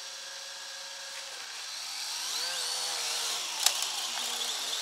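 Small electric quadcopter drone's motors and propellers whirring. The whine climbs and wavers in pitch as the throttle is raised for takeoff, with a sharp click about three and a half seconds in.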